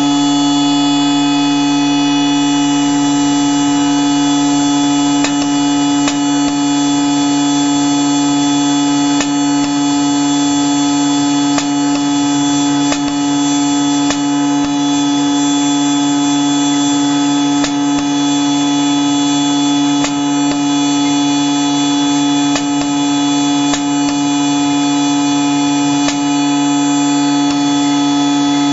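CNC engraving machine running as its cutter engraves lettering into a plastic plate. It makes a steady hum of several fixed tones, with faint, irregular ticks about once a second.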